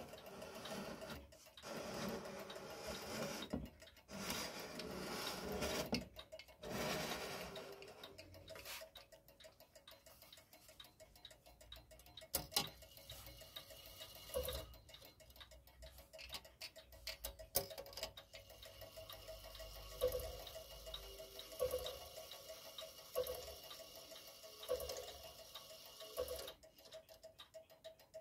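Gustav Becker P42 clock movement ticking as it runs. During the first several seconds a rubbing, handling noise covers it as the tin it stands on is turned by hand. Later the ticking is clearer, with some sharper ticks standing out.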